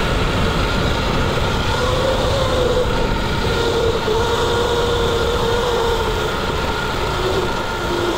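Sur-Ron electric dirt bike riding a dirt trail on light throttle: the electric drive's whine over a constant rattle and rumble from the drivetrain and tyres on rough ground. The whine drops in pitch near the end as the bike eases off and slows.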